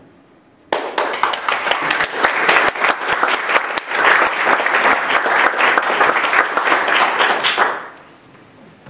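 Audience of a few dozen people applauding: the clapping starts suddenly about a second in, runs for about seven seconds and dies away near the end.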